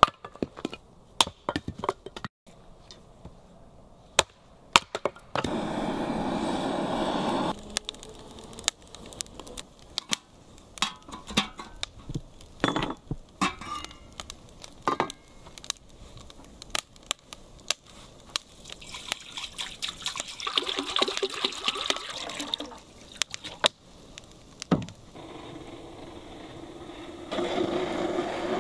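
Water being poured while making samovar tea, in three spells: about two seconds early on, a longer uneven spell past the middle, and another near the end. Sharp clicks and knocks come in between.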